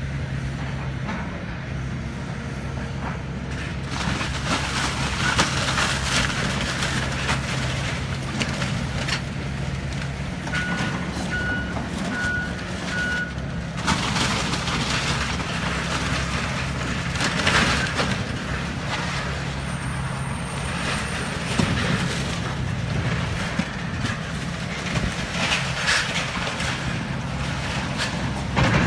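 Diesel engine of a tracked excavator running steadily under load while it pulls down a wood-framed building, with repeated crashing and crunching of timber and debris. About ten seconds in, a backup alarm beeps four times.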